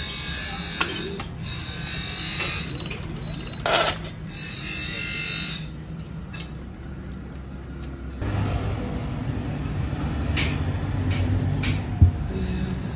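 Thin stainless steel sheet scraping and rattling as it is fed through hand-cranked slip rolls and bent into a curve, with a sharp metallic clank a little under four seconds in. A low hum comes in past the middle.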